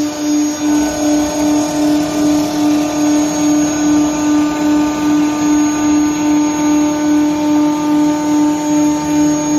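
CNC woodworking lathe running: a steady machine hum that pulses evenly about three times a second, with a few fainter higher tones above it.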